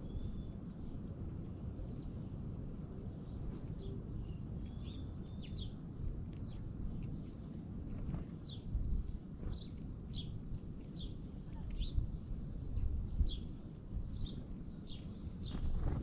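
Small songbirds giving short, sharp chip calls, many times over, while feeding on the ground, over a steady low rumble. A brief flutter of wings about halfway as another bird flies in.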